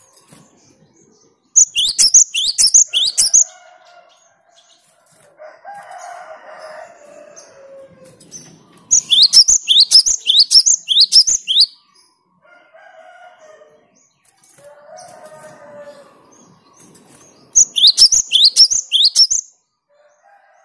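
Cinereous tit (gelatik batu) singing: three loud bursts of rapid, sharp, high repeated notes, each lasting about two seconds, with pauses between them.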